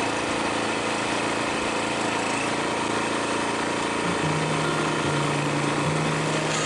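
Air-cooled four-stroke engine of a Shinko PS210M log splitter running steadily. From about four seconds in, low humming tones step in and shift as the lever drives the ram forward against a log.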